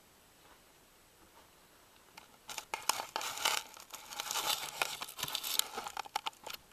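Faint quiet at first, then from about two and a half seconds in a close, dense crackling and rustling with many sharp clicks, like dry material being crumpled or handled.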